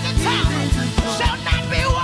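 Live gospel praise-and-worship music: a band with a steady kick drum about four beats a second and a bass line, with singers' voices over the top.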